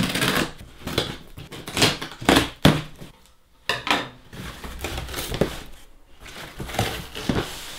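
Scissors slitting the packing tape on a large cardboard shipping box, then the cardboard flaps being pulled open: an uneven run of scrapes, rips and knocks, with a short lull about three seconds in.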